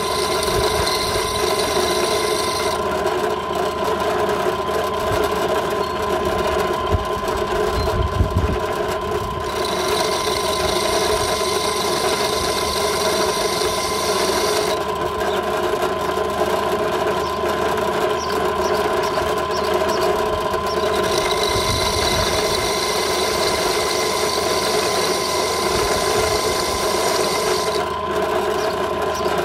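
Drill press motor running steadily with a constant whine while its bit grinds a hole through a glass bottle held under water. A higher hiss comes and goes three times, each lasting several seconds.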